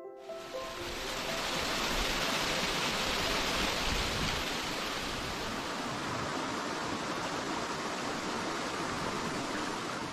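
Shallow water running over gravel and pebbles: a steady rushing hiss that starts abruptly and holds even throughout.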